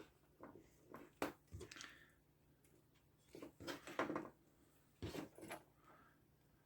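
Faint, irregular clicks and taps of small tools and parts being handled on a workbench, in a few short clusters about a second in, around three to four seconds in, and near five seconds.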